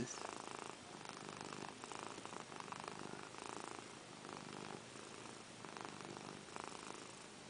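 Domestic cat purring softly and steadily, close up, the purr swelling and fading every second or so.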